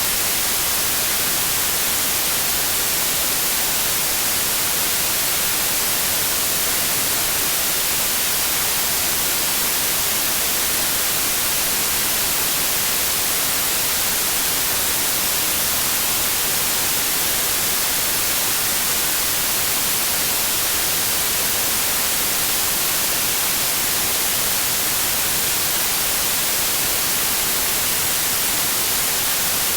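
Steady white noise: an even, unbroken hiss, strongest in the highs, with no change in level.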